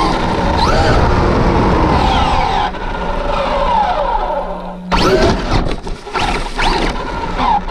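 Traxxas Rustler 4x4 RC truck driving, heard from its onboard camera: the brushless electric motor whines up and down in pitch as it speeds up and slows, over rushing tire and wind noise. Loud bursts of noise about five seconds in, and again near the end, as it runs off the road onto dry leaves.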